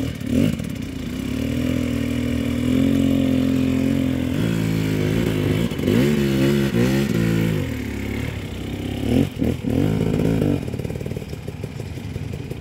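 Dirt bike engine under hard load on a steep loose hill climb: held at steady high revs for a few seconds, then revved up and down in quick repeated throttle blips, twice, easing off near the end.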